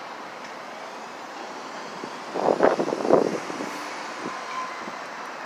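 Union Pacific freight train rolling slowly past, a steady rumble with faint high squealing that slowly rises and falls. Two loud bumps on the microphone about two and a half and three seconds in.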